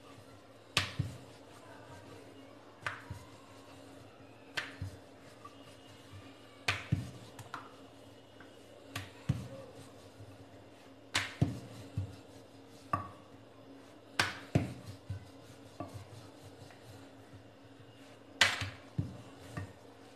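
Wooden rolling pin rolling out paratha dough on a marble board, knocking and clicking against the board about every one to two seconds.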